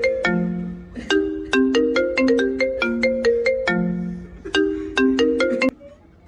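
Mobile phone ringtone: a fast, repeating melody of short marimba-like notes that cuts off abruptly about a second before the end, as the call is answered.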